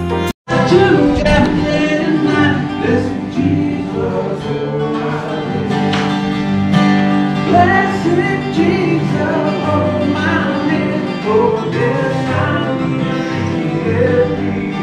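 Acoustic guitar playing with a voice singing along, a country-style song. It starts after a brief break of silence right at the start.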